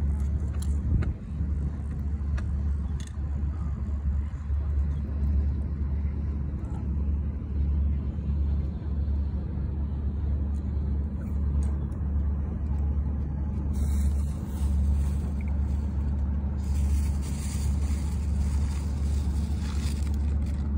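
A steady low rumble with wavering loudness.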